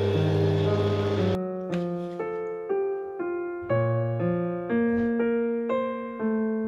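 Solo piano background music playing a slow melody of single struck notes, each fading before the next. Under it, for about the first second and a half, an electric stand mixer's motor runs, then cuts off suddenly.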